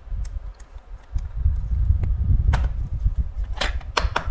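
A screwdriver prying at a small plastic housing, with low handling bumps throughout and a run of sharp clicks and cracks near the end as the plastic starts to crack open.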